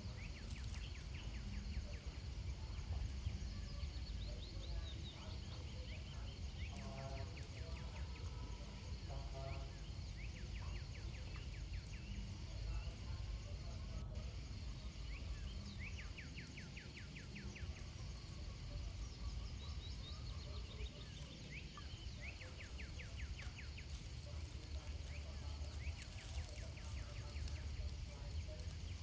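Outdoor ambience of insects chirping in short rapid trills, repeating every few seconds over a steady high hiss and a low rumble, with one sharp click about halfway through.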